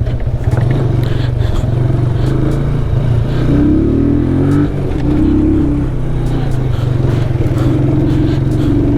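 Motorcycle engine running on a dirt trail, the revs rising and falling with the throttle, over a heavy low rumble, with scattered light clatter from the rough ground.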